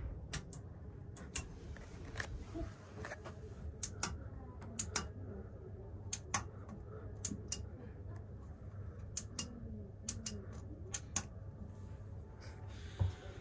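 Illuminated push-buttons on a sleeper cabin's wall panel clicking as they are pressed, about a dozen sharp clicks, often in quick pairs, over a low steady hum.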